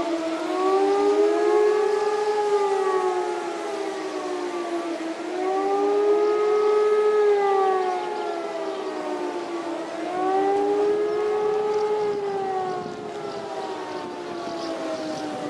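Civil-defence siren wailing, its pitch rising and then falling slowly in cycles about every four and a half seconds, with a second, slightly offset wail overlapping it. It drops in level a little near the end.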